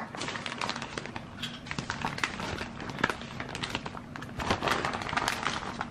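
Light handling noise in a small room: many irregular small clicks and crinkles, some a little louder about three and five seconds in.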